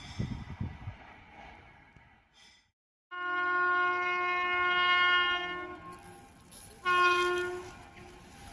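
WAP-7 electric locomotive horn sounding one long blast of about three seconds, then a short blast about a second later. Low thuds from the train are heard before the horn, and the rush of the passing train builds near the end.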